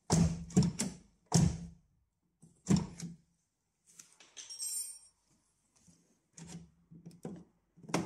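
Nissan Qashqai J10 exterior door handle being pulled and let go against the door, about six short hollow knocks with a brief ring after each.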